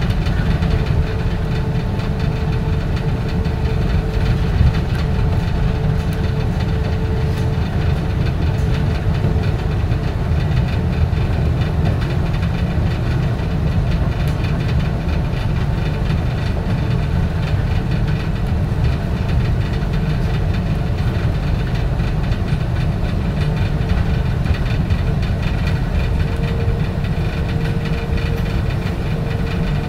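Running noise of a Bombardier Innovia APM 100 rubber-tyred people-mover car, heard from inside: a steady low rumble with a faint steady whine that fades out a few seconds in and comes back near the end.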